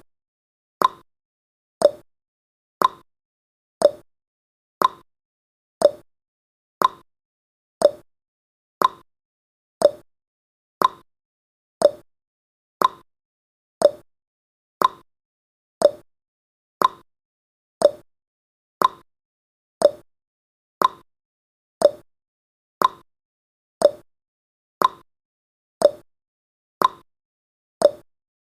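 Countdown timer's ticking sound effect: one short tick every second, evenly spaced and at a steady level.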